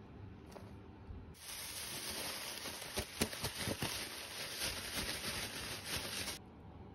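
Thin plastic bag crinkling and rustling as it is shaken to coat chicken pieces in potato starch. It starts about a second in and stops shortly before the end.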